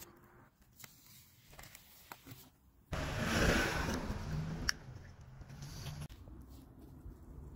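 Gloved hands handling a small pot of tyre dressing with a brush applicator: a scraping, rustling noise for about two seconds starting about three seconds in, ending in a sharp click, with scattered small ticks and clicks around it.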